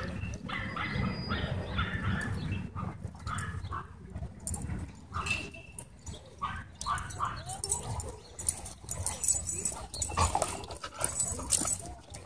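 A Weimaraner and other dogs play-wrestling at close range: short dog vocalisations such as whines and growl-like noises, mixed with scuffling and many short knocks.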